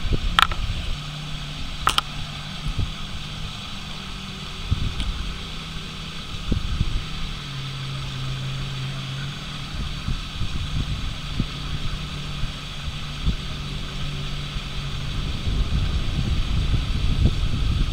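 Two jet skis running out on the water, their engines droning steadily with pitch shifting up and down as they manoeuvre, over the gusty rumble of wind on the microphone.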